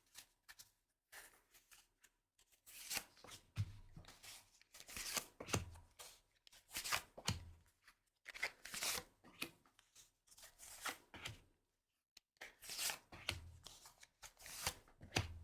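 A tarot deck being shuffled by hand: quiet, repeated rustling swishes of cards, roughly one a second, some with a soft low thump.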